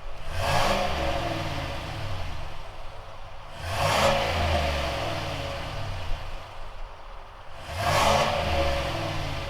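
V8 of a Chevrolet Silverado through an AWE OFG cat-back exhaust with an H-pipe and quad tips, revved three times, each rev climbing and then falling back toward idle.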